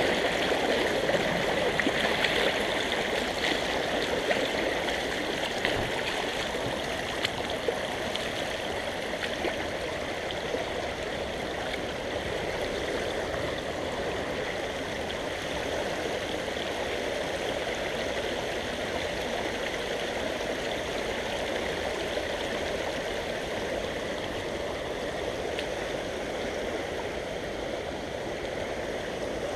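Shallow creek running over a stony bed, a steady rush and gurgle of water through a riffle, a little louder in the first few seconds and easing slightly after.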